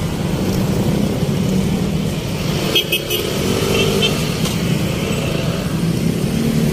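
Street traffic: car and motorcycle engines running and passing in a steady rumble, with a few short clicks about three seconds in.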